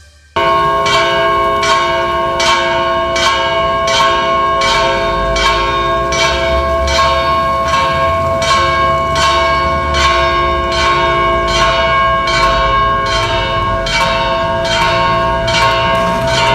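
Church bells of the Metropolitan Cathedral of San Salvador pealing, starting about half a second in: a steady, fast run of strikes, about two a second, with the bells' ringing tones overlapping and holding between strikes.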